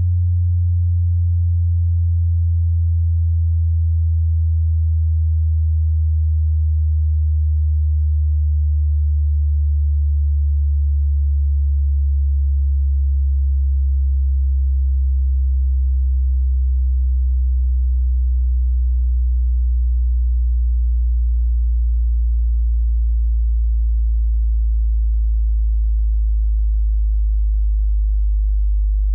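Pure sine-wave test tone of a high-to-low hearing-test sweep, a deep bass tone gliding slowly and steadily lower in pitch at an even loudness.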